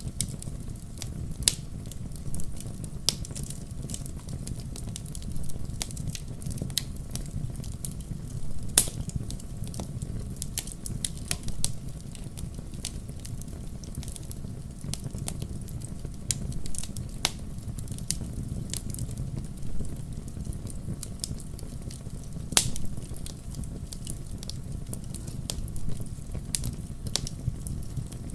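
Wood campfire burning, with a steady low rumble of flames and many irregular sharp pops and crackles of the burning wood.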